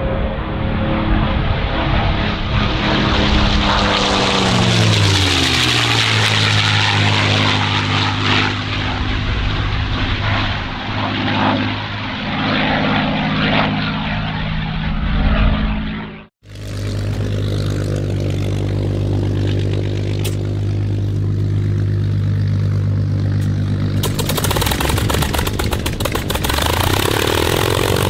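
Packard-built Rolls-Royce Merlin V12 of a P-51D Mustang making a low, fast pass: the engine howls and its pitch falls as the aircraft goes by, then runs steadily lower as it flies away. After an abrupt cut about sixteen seconds in, a Mustang's Merlin runs steadily on the ground close by, propeller turning.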